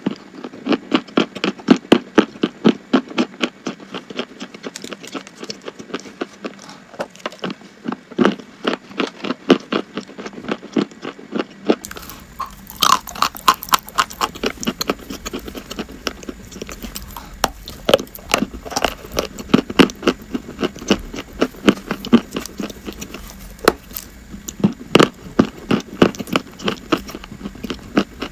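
A person biting and chewing crunchy chalk: a steady run of sharp crunches, several a second, with no pause.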